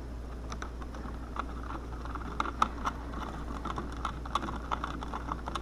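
Irregular small clicks and scrapes of hands working electrical wires and plastic wire nuts at a switch box, with a steady low hum underneath.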